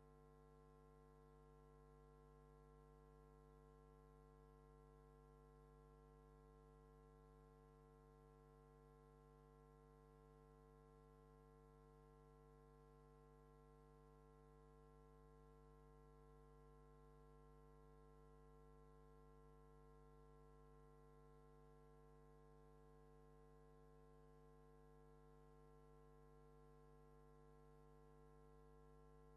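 Near silence, with only a faint steady hum made of several constant tones.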